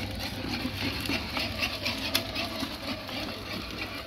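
Small electric motor of a child's battery-powered ride-on toy scooter running with a steady hum, with a light irregular rattle and one sharp click about two seconds in.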